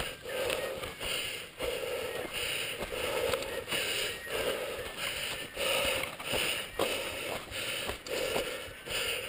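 A mountain biker breathing hard in a steady rhythm, with the bike's tyres rolling over a dry dirt trail and scattered sharp knocks from the bike over bumps.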